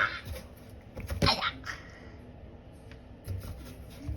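A few short scratching and rubbing sounds of a cat moving against a cardboard box, about a second in and again near the three-second mark.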